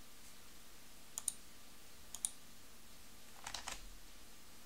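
Faint computer mouse clicking: a quick pair of clicks about a second in, another pair a second later, then a short flurry of clicks about three and a half seconds in.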